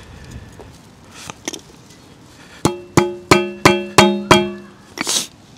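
Hammer tapping a rubber bushing into a hole in a steel motorcycle center stand: six sharp metallic strikes, about three a second, each ringing briefly.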